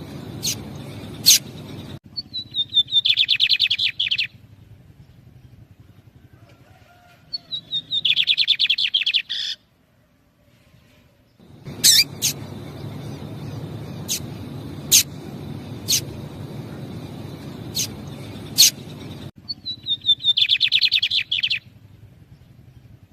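A lined seedeater (bigodinho) pair: single sharp call notes scattered through, answered three times by the male's song, a phrase of about two seconds made of quick descending notes running into a fast trill. A low hum sits under some stretches.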